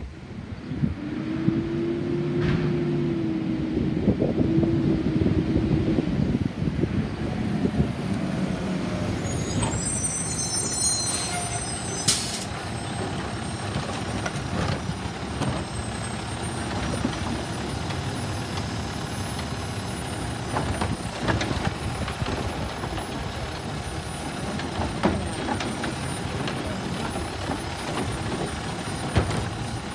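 Automated side-loader garbage truck pulling up with its diesel engine running and a hiss of its air brakes. The truck then runs steadily while the hydraulic arm lifts and dumps the yard waste cart, with scattered knocks.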